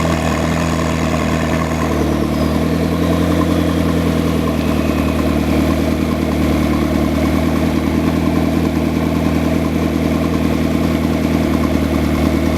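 McLaren sports car engine idling steadily. A faint high whine slides down in pitch about two seconds in, while the idle holds.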